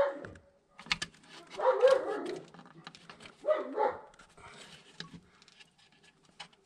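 A few short pitched animal calls, the loudest about two seconds in, with scattered light clicks between them.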